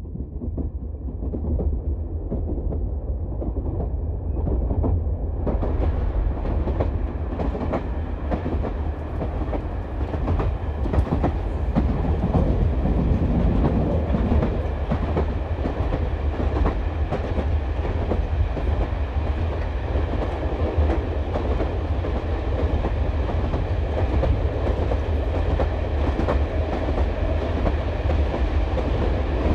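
Passenger train running on the rails, heard from inside the carriage: a steady low rumble and rattle of the wheels on the track, fading in over the first few seconds.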